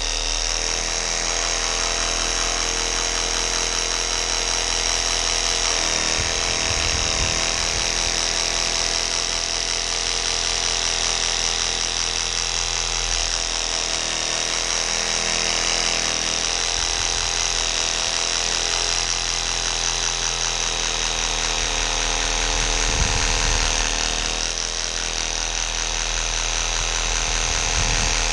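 Cerycose cordless 20V reciprocating saw running steadily, its pruning blade cutting through a thick branch of dead apple wood.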